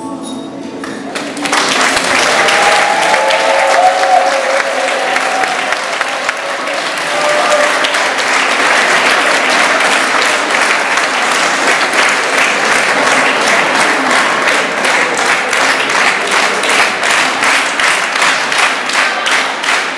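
An audience applauding and cheering as the last note of a song dies away. A few shouted cheers come in the first seconds. Later the applause turns into rhythmic clapping in time.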